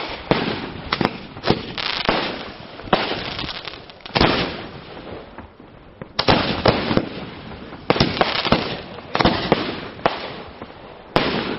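Aerial firework shells launching and bursting: a run of about a dozen sharp bangs, each dying away over a second or so, with a short lull about halfway through.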